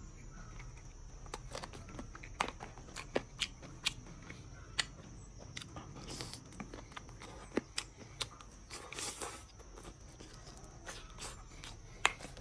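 Close-up eating sounds of a man chewing braised pork rib meat: irregular wet clicks and lip smacks, with two short hissing sounds about six and nine seconds in.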